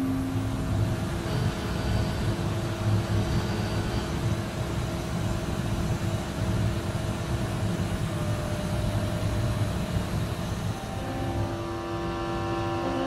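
CNC machine milling a crankshaft under flood coolant: a steady low rumble of cutting with coolant spray hissing over it. About eleven seconds in, steady whining tones join it as a different cut starts.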